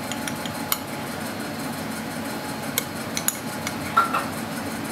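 A metal spoon clinking against a glass jar of sauce, a few light taps with the loudest about four seconds in, ringing briefly. A steady low hum runs underneath.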